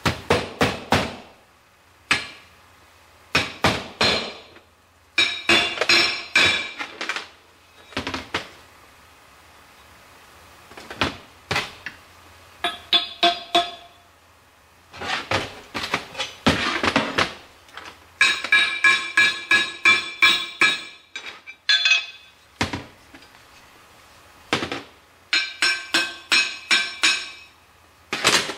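Small hammer tapping on a steel tube and pin, in bursts of several quick strikes with pauses between, the metal ringing after many of the blows.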